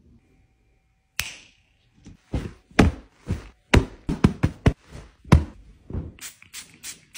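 An irregular run of about twenty thumps and pats, several a second, starting about a second in: hands plumping and patting fabric throw pillows.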